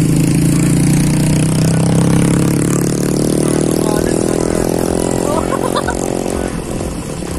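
Motorcycle engine running under way, its pitch rising steadily as it gathers speed, then falling off sharply about six and a half seconds in. Wind rumbles on the microphone throughout.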